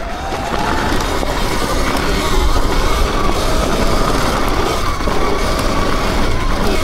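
Sur-Ron electric dirt bike's motor whining, the pitch rising and falling as the throttle and speed change, over a heavy low wind rumble on the microphone.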